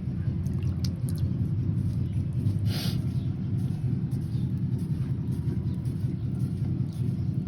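Steady low rumble, with a short hiss about three seconds in.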